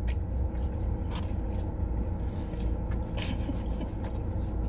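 Someone chewing and biting into a Burger King Whopper, with a few short, soft scraping noises, over a steady low hum.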